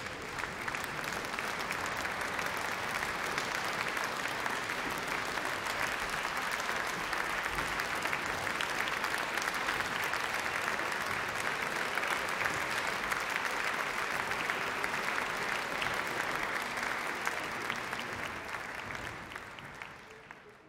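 Audience applauding in a concert hall: dense, steady clapping that dies away near the end.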